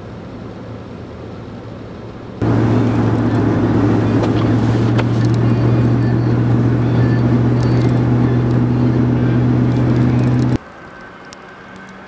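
Steady low drone of a car's engine and tyres on a snow-covered road, heard from inside the moving car; it comes in abruptly about two and a half seconds in and cuts off abruptly near the end. Before it, a quieter steady traffic rumble; after it, a fainter steady hiss.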